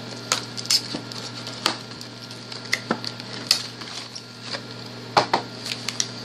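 Card-game starter deck packaging being handled as its contents are taken out: irregular crinkling, rustling and sharp clicks.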